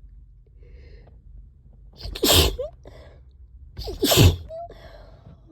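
A person sneezing twice, two loud allergy sneezes about two seconds apart.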